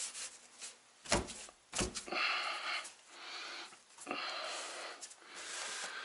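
Porcelain tile being set into thinset on a wall by hand: two sharp knocks a little after a second in, then several stretches of rubbing and scraping as the tile is pressed and slid into place.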